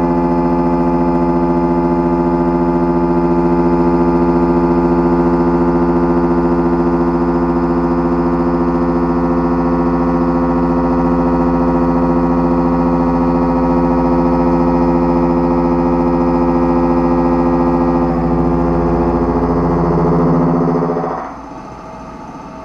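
Tungaloy DoRec11 indexable shoulder mill with LQMU-MJ inserts, at short overhang, cutting on a CNC machining centre: a loud, steady pitched tone with strong overtones. It wavers slightly near the end, then stops abruptly as the cut finishes, leaving a quieter machine hum.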